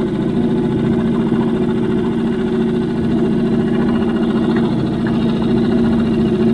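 Small boat's outboard motor running steadily at an even pitch, loud and close by.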